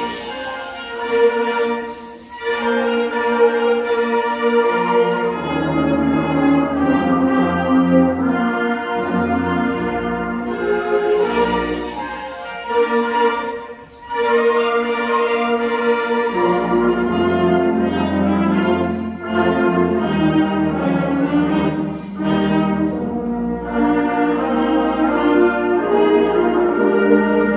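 Student concert band playing, brass instruments prominent in sustained chords, with a brief break between phrases twice.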